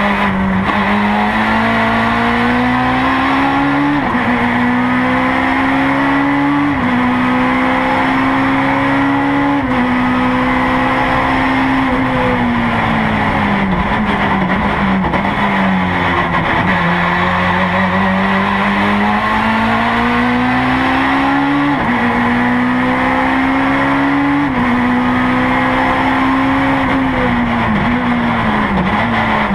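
Honda S2000 race car's engine heard from inside the cabin on a fast lap. The revs climb through the gears with quick upshifts at about four, seven and ten seconds in, then fall away under braking and downshifts. They climb again with two more upshifts and drop once more near the end.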